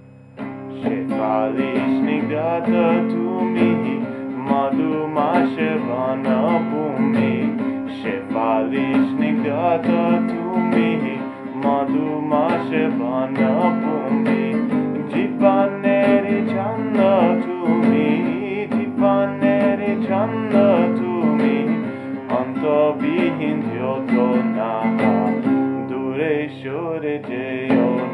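Nylon-string classical guitar played with strummed and picked chords, starting about half a second in after the previous chord dies away.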